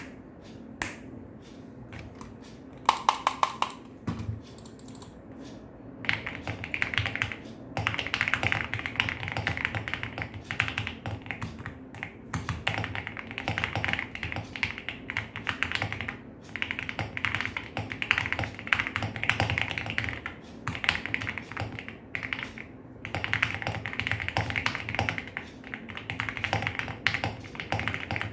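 Rexus Daxa M64 mechanical keyboard with lubed, filmed Gateron Yellow linear switches in a polycarbonate plate and PBT keycaps, tape-modded and foamed: a few single keystrokes and a quick flurry of presses, then fast steady typing from about six seconds in, broken by a few short pauses.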